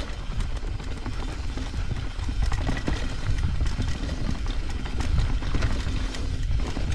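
Trek Slash 8 full-suspension mountain bike riding fast down a dirt singletrack: tyres rolling over dirt and roots while the chain and frame rattle with frequent small irregular knocks, over a steady low rumble of wind on the microphone.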